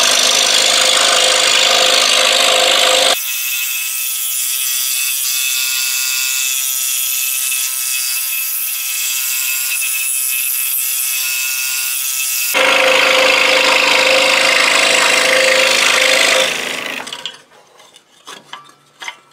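Scroll saw with a Pegas No. 7 Modified Geometry blade running and cutting through half-inch wood, a steady rasping buzz. For a stretch in the middle the sound turns thinner and quieter, then comes back full before the saw stops about 17 seconds in, followed by a few light clicks of wood pieces being handled.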